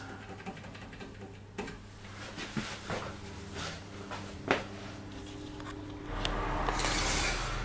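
Electric oven running with a low steady hum and a few faint clicks; about six seconds in, a louder steady hiss and a deeper hum join in.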